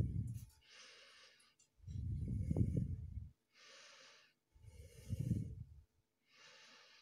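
A person breathing close to the microphone: slow breaths in a steady cycle, each exhale a low puff against the mic and each inhale a soft hiss.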